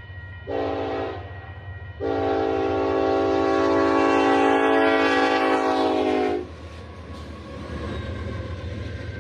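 Model diesel locomotive's sound decoder sounding its multi-chime horn: a short blast about half a second in, then a long blast of about four seconds, over a steady low hum.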